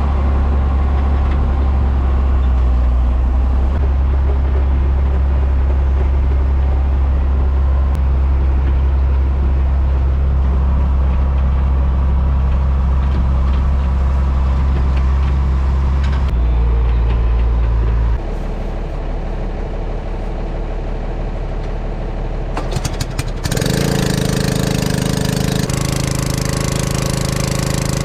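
Engine running at a steady speed. Its note shifts and drops about two thirds of the way through and it gets a little quieter. Near the end a louder, rattlier engine sound takes over.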